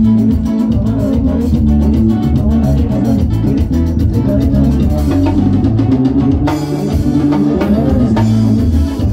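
Band music with drum kit, guitar and bass guitar playing an instrumental dance tune with a steady beat.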